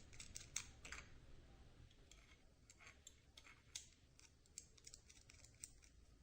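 Faint, irregular light clicks and taps of small camera-mount parts being handled.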